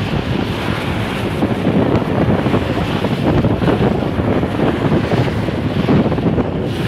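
Wind buffeting the microphone over choppy river waves, with water slapping and splashing against the side of a moving boat. The rushing noise is loud and uneven, with no clear engine tone.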